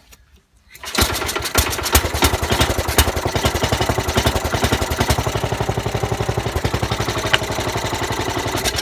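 The 1968 Sears Suburban 12's Tecumseh HH120 single-cylinder engine catches about a second in and runs with a rapid, steady firing beat, then drops off at the very end. It is the engine running after a lost-spark fault.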